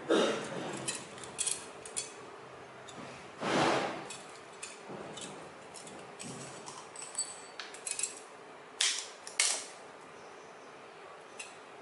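Thin aluminium strips cut from a beer can being bent and handled by hand: scattered small clicks and crinkles of the metal. There is a short rushing noise about a third of the way in, and two sharper clicks later on.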